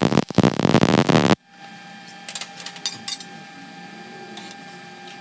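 Welding arc crackling and buzzing, cutting off abruptly about a second and a half in. After that comes a faint steady hum with a few light metallic clicks.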